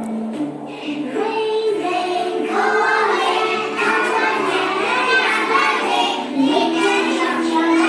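Nursery-rhyme song: children's voices singing a melody over a backing of steady instrumental notes, with the singing coming in about a second in.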